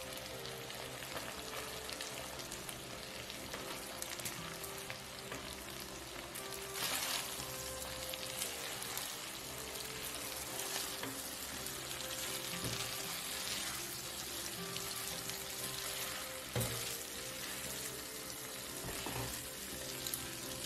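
Shrimp and butter-garlic sauce sizzling in a nonstick pan while spaghetti is tossed through it, with a louder swell of sizzling about a third of the way in. A single sharp knock comes about two-thirds of the way through.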